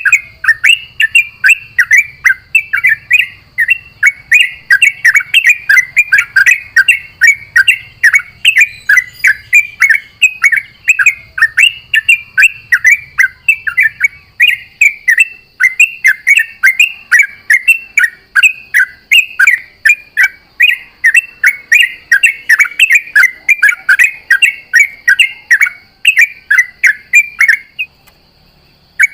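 Yellow-vented bulbul (trucukan) singing a fast, unbroken string of short chirping notes, the rapid continuous 'ropel' song, which breaks off about a second before the end.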